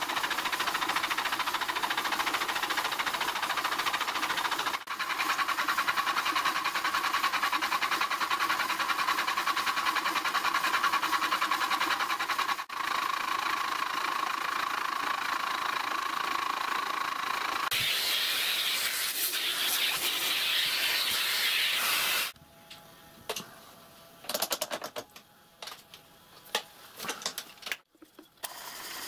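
Vertical milling machine running, its end mill cutting a radius in steps on a solid cast iron model-locomotive cylinder, with a steady whine through the cutting noise. About eighteen seconds in the cut turns harsher and hissier, and some four seconds later the machine falls quiet, leaving scattered clicks and knocks of metal being handled.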